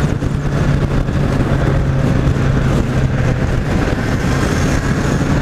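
Kawasaki Z800's inline-four engine, on its stock exhaust, running steadily on the move: a steady low engine tone under a loud, even rush of wind and road noise.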